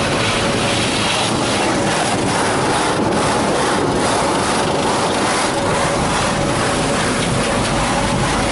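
Sonny's tunnel car wash at work, heard from inside the car: water spray and red cloth curtain strips rubbing and washing over the windshield and body make a steady loud rush, with a faint steady hum underneath.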